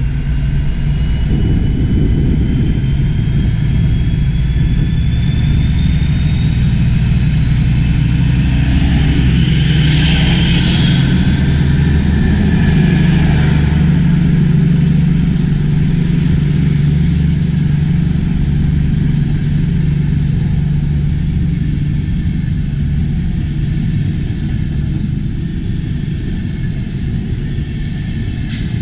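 Diesel train engine running hard under load, a heavy steady rumble with a high whine that climbs in pitch over the first ten seconds or so as it accelerates. A sharp click near the end.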